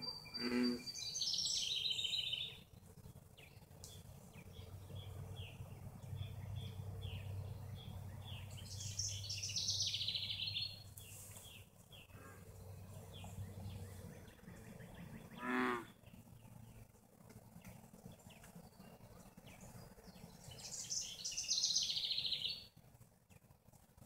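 American bullfrog croaking in deep repeated notes: the last of a series right at the start and a single call about fifteen seconds in. High buzzy trills come three times in between, the loudest near the end.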